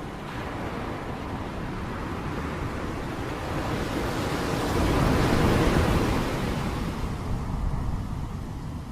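Heavy rain, a dense steady hiss with a low rumble underneath, swelling louder about halfway through and then easing back.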